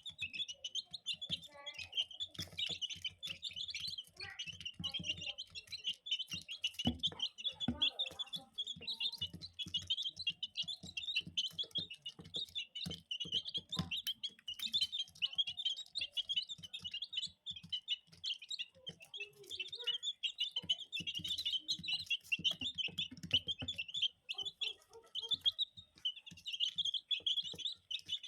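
A group of baby chicks peeping continuously, high and dense, while pecking at feed, with many short taps and clicks throughout.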